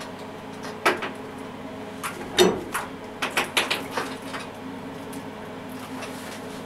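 Metal tools and parts clanking and knocking on a steel workbench as they are handled: a few scattered knocks, a louder clank about two and a half seconds in and a quick run of clicks a second later, over a steady hum.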